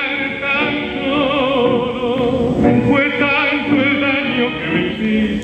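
Recorded tango song: a singer holds long, wavering notes with vibrato over the accompanying orchestra.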